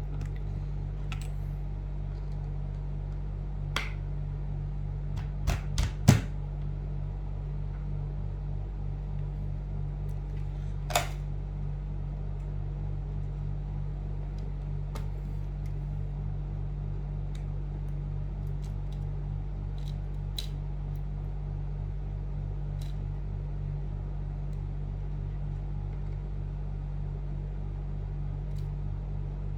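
Small metal tools being handled while changing screwdriver bits: a few sharp clicks and clacks, with a quick cluster of three about six seconds in as the loudest, then scattered faint ticks. A steady low hum runs underneath.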